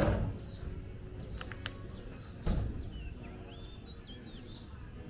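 Birds chirping, with short repeated chirps and a gliding call about three and a half seconds in, over a low steady hum. Two dull thumps, at the very start and about two and a half seconds in.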